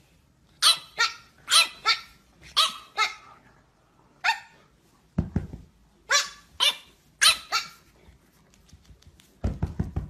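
French bulldog puppy barking: about a dozen short, high-pitched yaps, mostly in quick pairs, each dropping in pitch. A low thud comes about halfway through, and a low rumble starts just before the end.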